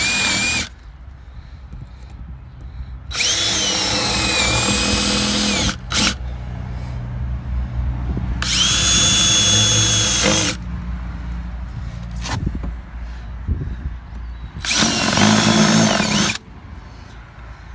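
Power drill running in four separate runs of a couple of seconds each, its motor whining up to speed and back down between short bursts, while driving at screws in the boat's console panels.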